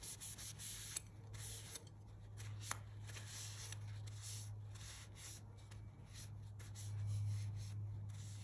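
Cloth rag rubbing along a steel knife blade in repeated, irregular wiping strokes, a dry swishing, as the freshly neutralized ferric chloride darkening is wiped down. A low steady hum runs underneath.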